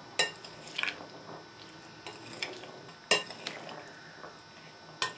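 Metal spoon stirring chickpeas and cherry tomatoes in a glass mixing bowl: quiet stirring with a few sharp clinks of spoon on glass, the loudest about three seconds in.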